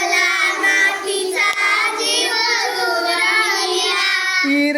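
A group of children singing a line of a Marathi poem back in unison, several voices together and not quite in step.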